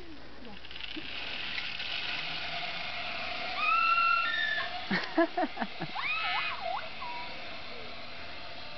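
Zip-line trolley running along the steel cable as a rider slides away, making a steady whirring hiss with a faint whine. Around the middle come several short whoops and yells.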